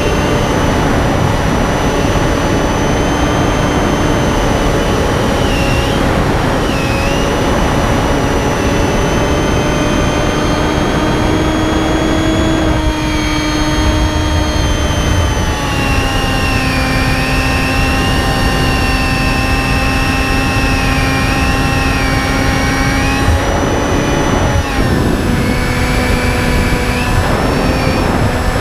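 Finwing Penguin FPV plane's brushless electric motor and pusher propeller running in flight, a steady drone that shifts in pitch a few times as the throttle changes, over a constant rush of wind noise.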